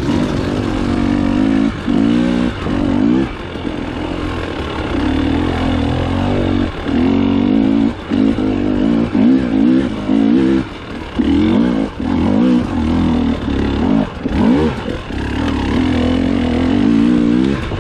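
Dirt bike engine working hard up a steep rocky climb, the revs rising and falling constantly as the throttle is worked, with frequent brief drops.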